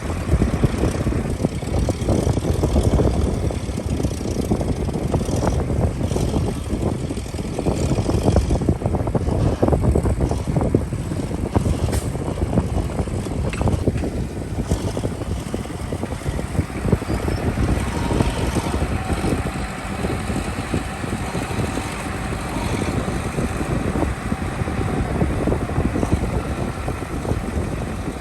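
A heavy diesel machine running steadily, with many small irregular knocks and rattles throughout.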